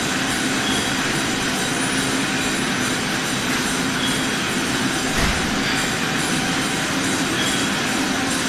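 Can filling line running: steady, dense mechanical clatter of the chain conveyor and rotary filling machinery, with a short low thud about five seconds in.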